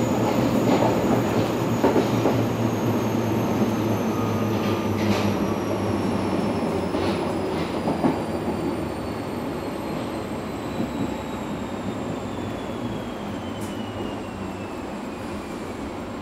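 Berlin U-Bahn F79 train heard from inside the car as it slows for a station: rumble of wheels on the track with a few clicks over rail joints, and an electric whine falling steadily in pitch as the speed drops. The overall noise eases off toward the end.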